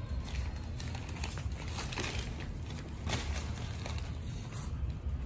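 Shih Tzu puppies eating from a steel bowl and moving about on the newspaper lining their cage: irregular small clicks and smacks with paper crinkling.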